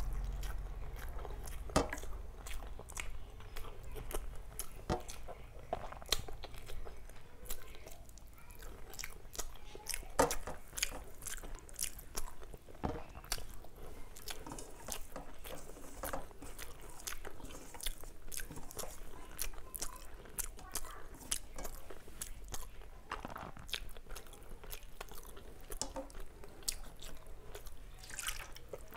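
Close-miked chewing and biting of a mouthful of rice and curry, with irregular mouth clicks and an occasional crunch.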